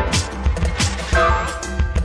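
Upbeat background music with a steady drum beat, melodic notes coming in about halfway through.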